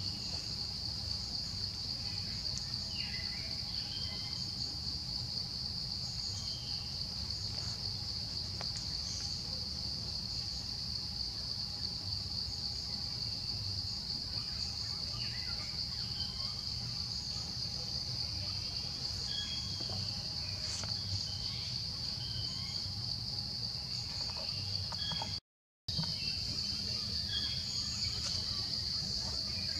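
Steady, high-pitched drone of an insect chorus in forest, with scattered short bird chirps over it. The sound cuts out for a split second near the end.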